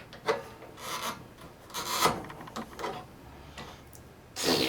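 Several short rubbing and scraping sounds, roughly a second apart: a rubber fuel line being worked off the snowblower carburetor's fuel inlet by hand.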